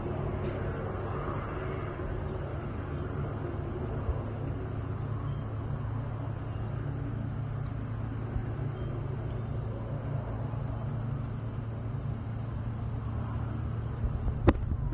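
Steady low engine drone from distant firefighting aircraft working over the lake. A single sharp click sounds near the end.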